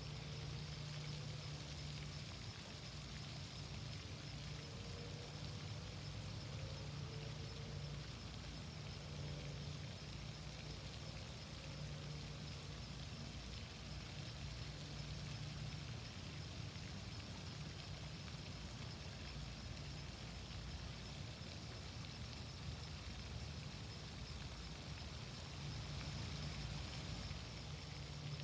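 Steady rush of a flowing stream, with a low steady hum underneath like distant traffic or an engine.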